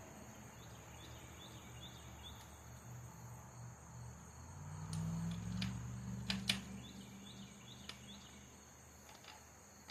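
Quiet outdoor ambience with crickets chirping faintly in short runs of high chirps. A low hum swells up in the middle and fades out, and a few sharp light clicks come a little after the middle.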